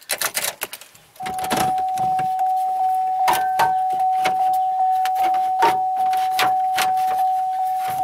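A steady electronic warning tone with a rapid ticking about three times a second, starting about a second in, after a few sharp plastic clicks from the steering column covers being worked loose.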